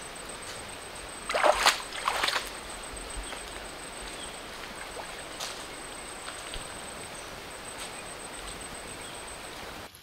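Shallow rocky stream trickling steadily, with two brief splashes about a second and a half and two seconds in as hands move in the water.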